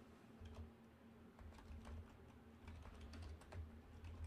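Faint typing on a computer keyboard: irregular keystrokes over a low steady hum.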